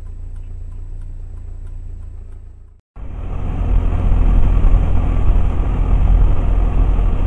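Dashcam car-interior audio. First a steady low engine hum with faint regular ticking about three times a second. It cuts to silence for a moment about three seconds in, then gives way to louder steady engine and tyre noise from a car driving along a highway.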